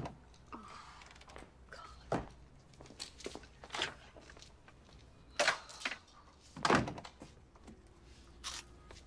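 A handful of separate knocks and thunks, the loudest two a little past halfway: clothes hangers being hooked onto the back of a door and things handled on a shelf, in a small room.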